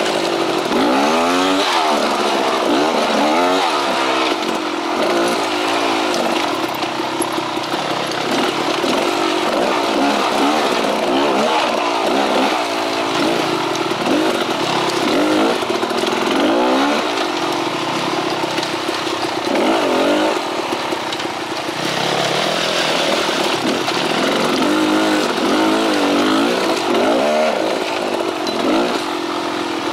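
Beta X-Trainer two-stroke dirt bike engine, revving up and falling back over and over as the bike is ridden along a trail, its pitch rising and dropping every couple of seconds.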